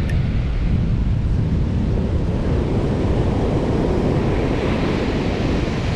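Ocean surf washing and breaking on a sandy shore, with wind rumbling on the microphone. The wash swells a little past the middle.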